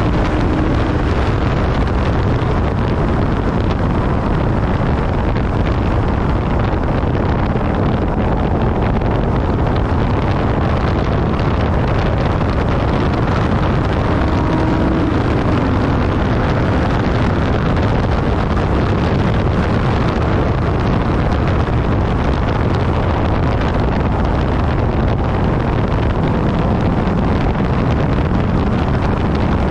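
Infiniti G37S's 3.7-litre V6 engine and road noise at speed on a track, buried under steady heavy wind buffeting on the camera microphone.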